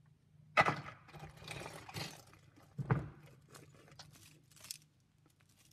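Costume jewelry being handled and sorted on a tabletop: metal chains, a link watch band and beads clinking and rattling, with two sharper knocks, about half a second in and near three seconds.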